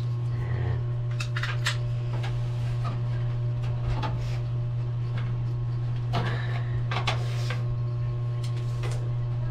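Scattered clicks, light knocks and rustles of hands handling parts and cables inside an open desktop computer case, over a steady low hum.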